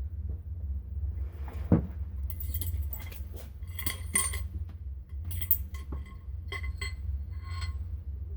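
Metal fork parts clinking and ringing as they are handled, a string of light metallic strikes after a single sharp knock about two seconds in.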